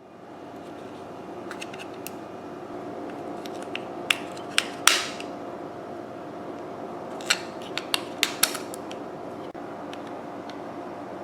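Sharp plastic clicks and knocks from handling the skull bicycle horn's battery compartment while two AAA batteries are fitted, the loudest about five seconds in, over a steady background hum.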